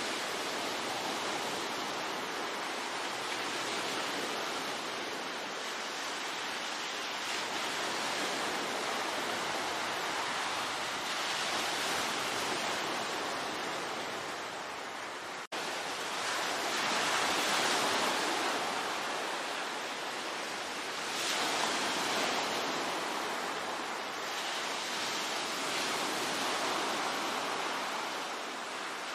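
Ocean waves breaking and washing onto a shore: a continuous surf that swells and ebbs every few seconds, with one momentary drop-out about halfway through.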